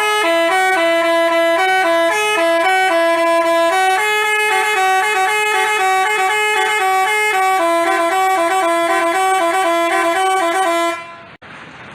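Basuri telolet bus horn playing a quick melody, its several notes changing every fraction of a second; it stops about a second before the end.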